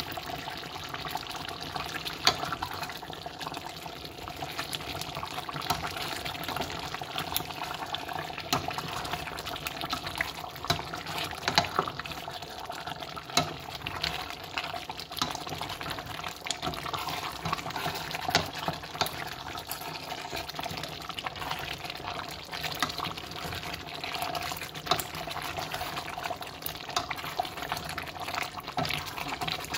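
A plastic spoon stirring thick chicken curry sauce in a stainless steel pot: wet, sloshing stirring with irregular clicks of the spoon against the pot.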